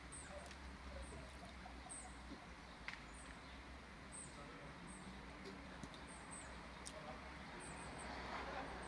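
A small animal's high, thin chirp, repeating regularly about every two-thirds of a second over a steady background hiss.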